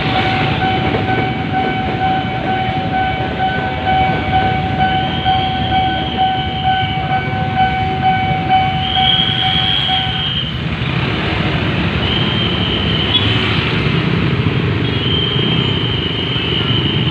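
Railway level-crossing warning siren: a steady high tone that stops about ten seconds in, and a second, higher tone sounding in on-off pulses about two seconds long, over the rumble of a passing train.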